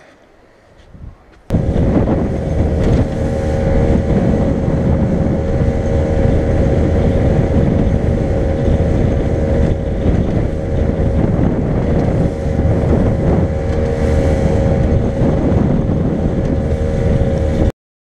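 A boat's outboard engine running steadily, with wind noise on the microphone. It comes in abruptly about a second and a half in and cuts off just before the end.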